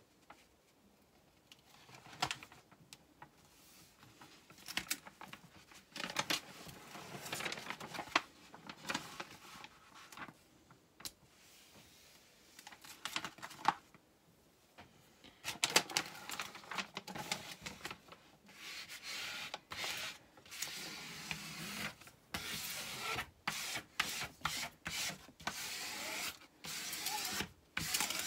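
Protective film on a diamond-painting canvas crinkling and rustling as hands smooth it down to press out the air, with scattered rubbing strokes that grow into a dense run of short, quick strokes in the second half.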